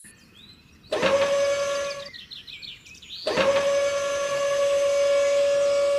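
Small electric motor of a DIY toy tractor whining at a steady high pitch. It rises as it spins up about a second in, stops after about a second, then starts again and runs on steadily.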